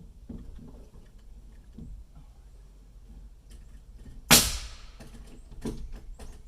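A single loud bang with a short ringing tail about four seconds in, followed by a few lighter knocks, over a low rumble.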